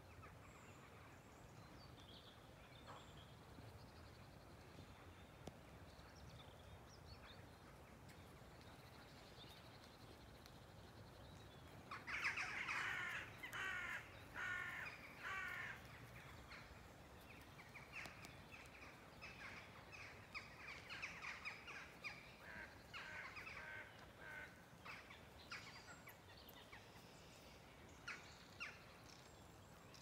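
Corvids cawing at dawn over faint birdsong: about twelve seconds in, a loud run of harsh caws starts and lasts a few seconds, then scattered caws keep coming until near the end.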